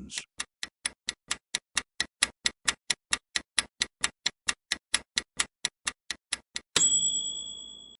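Countdown timer sound effect: fast, even clock ticks, about four to five a second, ending a little before the end in a ringing chime that marks time up.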